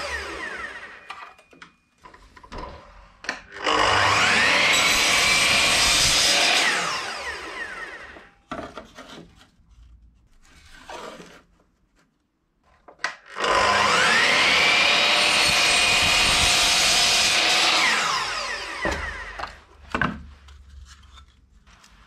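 Handheld electric power tool run twice for about three seconds each: the motor whine rises as it spins up, holds steady while it cuts, and falls away as it winds down. Short knocks and handling sounds come between the runs.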